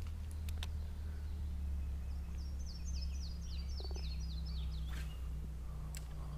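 A songbird sings a quick run of about ten high, down-slurred notes over a low steady rumble, with a few faint clicks.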